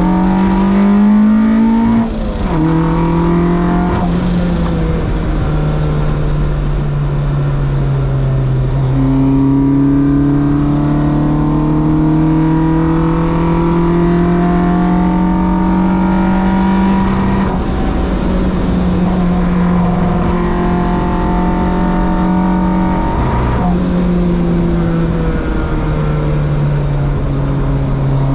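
Track car's engine running hard on a circuit lap, its pitch climbing slowly under acceleration and dropping suddenly several times at gear changes or lifts.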